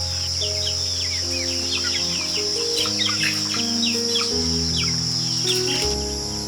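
Soft background music of long held notes, with birds chirping in quick short calls over a steady high insect drone.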